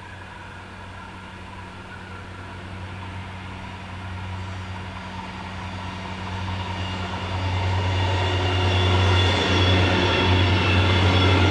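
Yellow self-propelled track maintenance train approaching and passing: a steady low engine drone with rail noise, growing louder over the first eight seconds and staying loud as it goes by.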